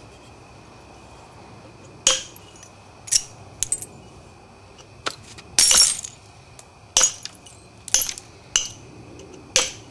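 Flintknapping on a Florida coral point: a series of sharp, glassy clicks and ticks, about ten in all, as the stone's edge is struck and worked with a knapping tool, with a slightly longer scraping burst midway.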